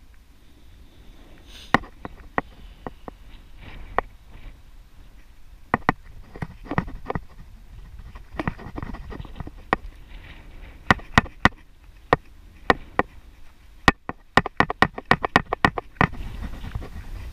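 Bicycle rattling over a cracked paved path: irregular sharp clicks and knocks that come thick and fast near the end, over a low rumble of riding noise.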